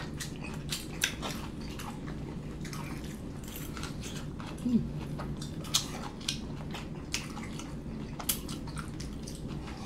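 Close-up mouth sounds of people chewing lo mein noodles and orange chicken, with scattered light clicks of forks on the plate.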